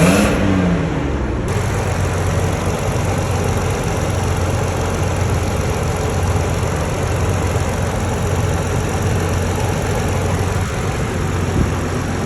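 2002 Isuzu Rodeo engine running with a misfire. It rises and falls briefly in pitch at the start, then settles to a steady idle.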